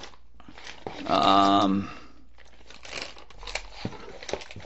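Plastic lure packaging crinkling as it is handled, a run of small irregular crackles through the second half. A short wordless voice sound comes about a second in.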